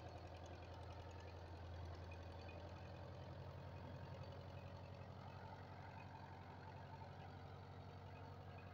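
Belarus tractor's diesel engine running steadily with a low, even throb while its hydraulics raise a loaded tipping trailer's bed.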